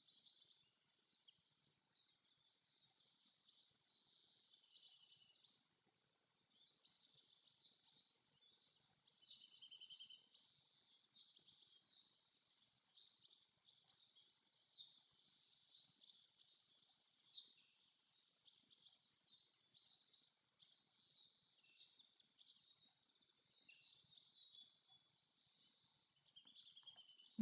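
Faint forest birdsong: several small birds giving quick, high chirps and short trills.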